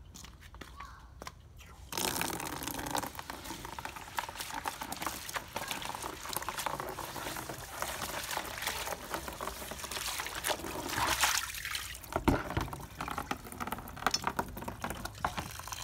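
Tap water pouring into a plastic basin, starting suddenly about two seconds in, splashing as a hand rinses out the inside of the basin. A few sharp knocks come about twelve seconds in.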